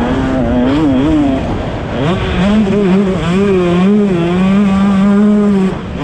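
Motocross bike engine heard close up from onboard, revving up and down with the throttle as it is ridden. Its pitch wavers, dips briefly about a second and a half in, then climbs and holds before dropping off near the end.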